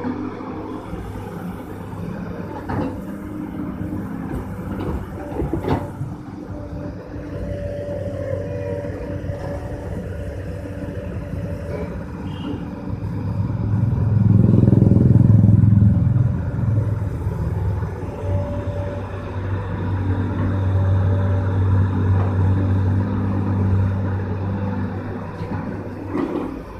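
Diesel engine of a crawler excavator running steadily as it digs. The engine labours and gets louder for a couple of seconds about halfway through, then picks up again. Two sharp knocks come in the first six seconds.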